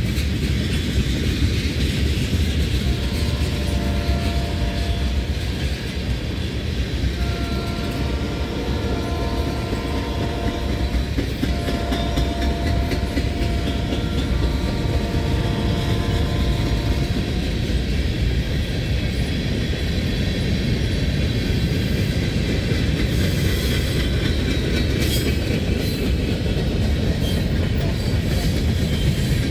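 Freight cars of a passing freight train rolling by at speed: tank cars and covered hoppers rumbling and rattling, with wheels clicking over the rail joints. From about three seconds in, a distant locomotive horn sounds several long blasts over the rumble for about fifteen seconds.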